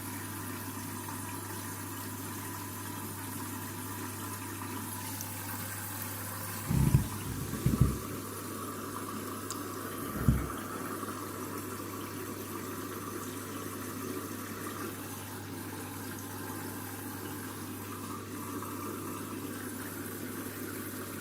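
Candy washing machine filling with water for the rinse: a steady rush of water running into the drum, with three short low thumps at about seven, eight and ten seconds in.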